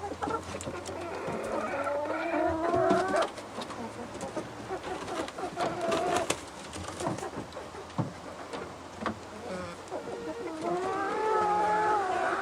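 Chickens calling: drawn-out, wavering calls near the start and again near the end, with scattered small clicks and knocks between.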